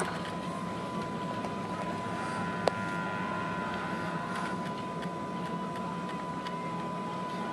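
Steady drone of a ship's machinery heard on the bridge, with a constant high whine running through it. A single sharp click comes a little under three seconds in.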